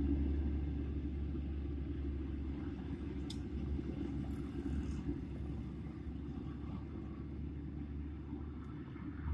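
Steady low rumble of road traffic, with a short sharp click about three seconds in.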